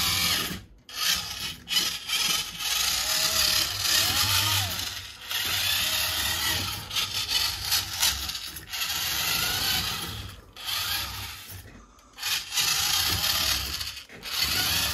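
Small electric drive motor and gearbox of a radio-controlled model tractor whining as it drives. It runs in short spurts of a second or few, stopping and starting again several times.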